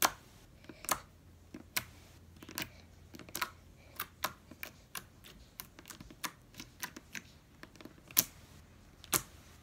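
Slime being kneaded and squeezed in the hands, giving off sharp, irregular clicking pops about two or three times a second.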